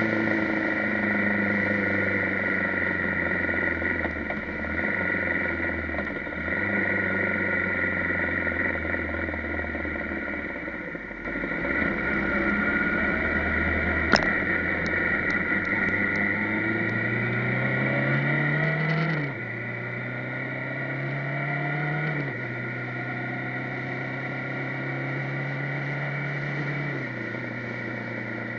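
Motorcycle engine running on the move, heard from the bike itself. Its pitch steps between gears and climbs as it accelerates a little past halfway, over steady wind and road noise, with one sharp click about halfway through.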